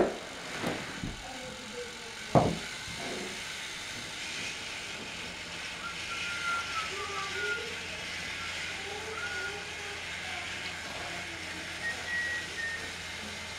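Battery-powered TrackMaster toy train engines running on plastic track, a steady whirring rattle. Two sharp knocks stand out, one right at the start and another about two and a half seconds in.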